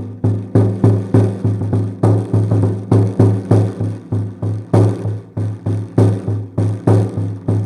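A drum struck in a fast, even rhythm, about three to four strokes a second, each stroke with a deep ring, over a steady low tone.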